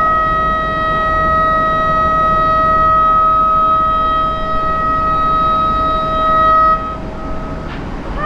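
Locomotive horn held on one steady high note for about seven seconds, then cutting off, over a low rumbling background. Another horn note starts right at the end.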